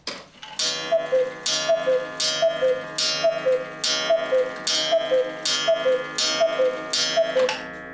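Black Forest cuckoo clock with an 8-day movement calling the hour: the bellows-pipe "cu-ckoo", a higher note falling to a lower one, repeats about nine times, each call paired with a struck gong.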